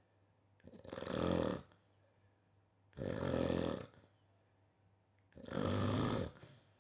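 A person snoring: three snores about two and a half seconds apart, each lasting about a second.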